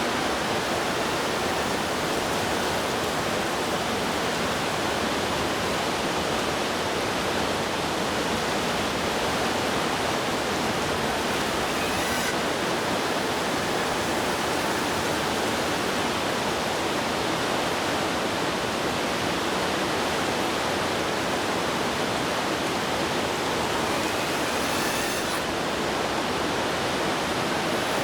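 Steady, even hiss of heavy rain falling.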